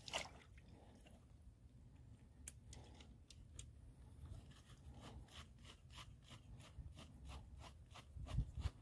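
Hands working in wet mud and dry grass, with faint crunching and a run of quick small clicks in the second half.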